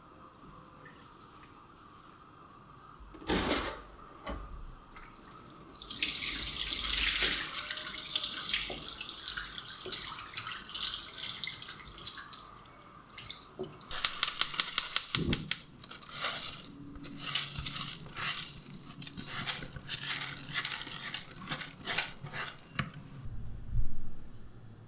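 Kitchen tap running water for several seconds, followed by a quick run of about ten loud sharp clicks and then scattered knocks and clatter of kitchen work.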